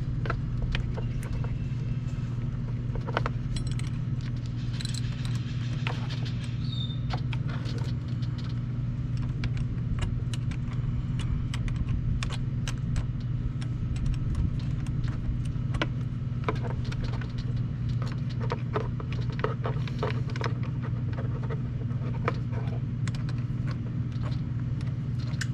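Irregular metallic clicks and clinks of hand tools working on a car battery's negative cable terminal, over a steady low hum.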